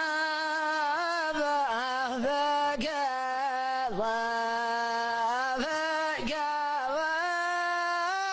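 A single voice sings a slow, drawn-out chant in a Middle Eastern style, holding long notes with wavering ornaments and pausing briefly between phrases, with no accompaniment.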